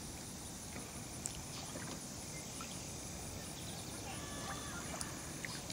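Faint, steady outdoor background noise with light water sloshing around a toy boat being set into shallow lake water, and a few faint short ticks.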